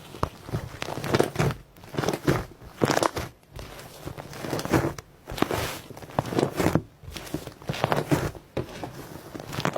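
Iceberg slime being pressed and squeezed, its dried, hardened crust crackling and crunching in repeated bursts, about one a second.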